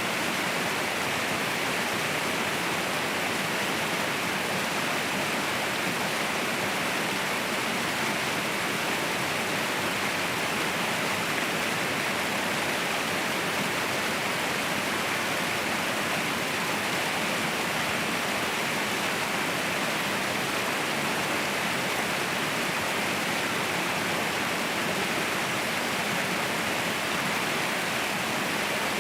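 Mountain waterfall: water falling in a steady, even rush that does not change.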